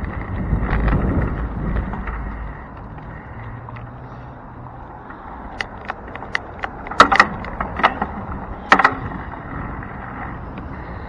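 Wind rushing over a handlebar camera's microphone as a bicycle rolls along the street, loudest in the first two seconds and then steady and lower. A handful of sharp clicks and rattles between about six and nine seconds in.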